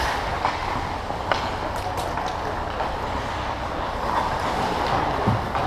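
Ambient noise of a hockey game in play: a steady wash of scraping and crowd noise, with a few scattered sharp clicks and knocks.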